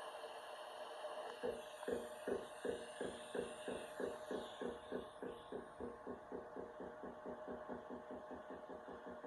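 Miller Dynasty 280 TIG welder arc running on an exhaust pipe: a steady electrical hum, then from about a second and a half in a rhythmic pulsing buzz of about three to four beats a second, typical of pulsed TIG welding.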